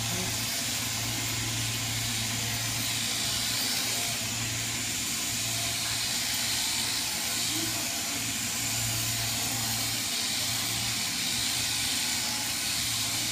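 Sheep-shearing handpiece running steadily as it clips the fleece off a sheep: a constant low hum with a hiss over it.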